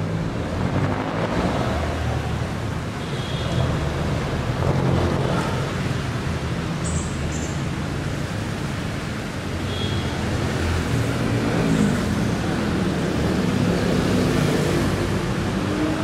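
City street traffic on a wet road: a steady hiss of tyres on wet asphalt over the low running of passing vehicle engines.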